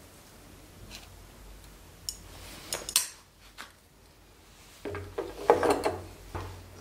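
Wheeled mosaic nippers cutting glass tesserae: a few sharp snaps and clicks, then a louder cluster of clicks and rattles near the end as the small cut glass pieces are handled.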